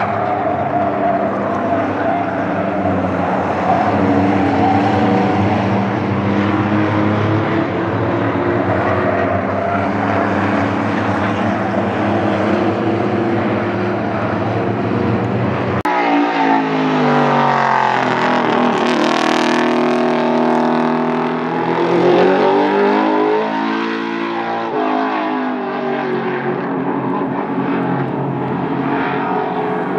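Race car engines running at speed on an oval track. Several cars make a dense, steady mix at first. About halfway through, after a sudden change, one car's engine note falls in pitch and then climbs again.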